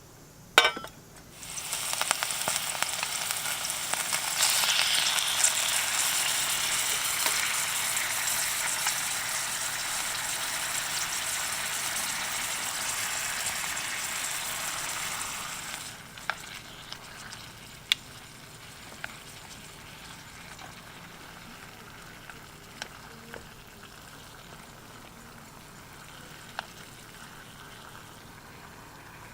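Pork slices frying in ginger sauce in the lid of an old Japanese army mess kit, used as a frying pan. A sharp knock about half a second in is followed by loud sizzling, which drops suddenly to a quieter sizzle with scattered small clicks about halfway through.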